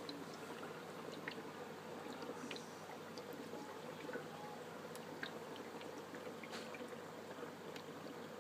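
Air-driven DIY moving-bed aquarium filter running: soft water bubbling and trickling with faint scattered ticks and pops, over a steady low hum.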